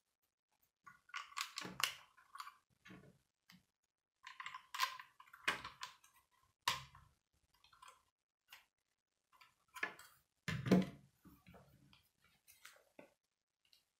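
Plastic Lego bricks clicking and rattling in quick clusters as pieces are handled and pressed together by hand. About two-thirds of the way through comes a heavier thump, the plastic model being set down on a wooden table.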